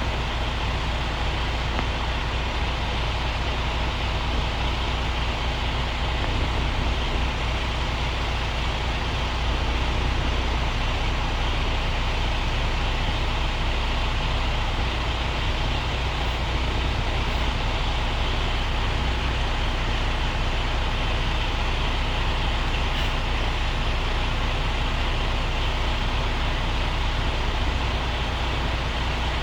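Diesel truck engine running steadily, a constant low rumble with a steady hum.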